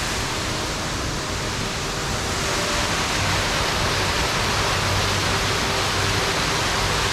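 A small stream waterfall rushing in a steady, unbroken wash of water noise.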